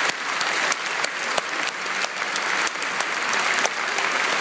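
Audience applauding: many hands clapping steadily, with some sharp individual claps standing out close by.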